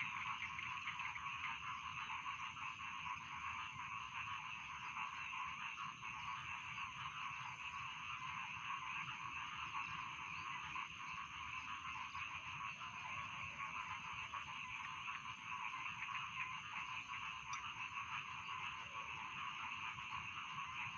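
Dense, continuous chorus of many paddy-field frogs croaking over one another, with no pause. A thin steady high tone runs above the chorus.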